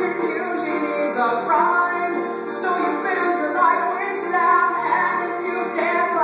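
A female singer performing a song over instrumental accompaniment.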